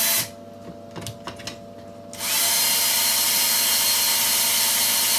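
Cordless drill-driver's brushed motor running at speed, stopping about a quarter second in, then starting again about two seconds later and running on steadily, with a few faint clicks in the pause. Its carbon brushes have just been cleaned, and it now responds much better, in the owner's words.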